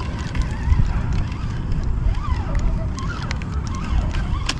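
Wind buffeting the microphone, with light scattered clicks from a spinning reel as its handle is cranked to bring in a fish.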